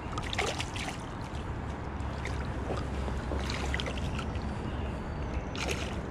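River water running and lapping against a concrete bank, over a steady low rumble. A few brief sharp sounds stand out, about half a second in, around three and a half seconds, and near the end.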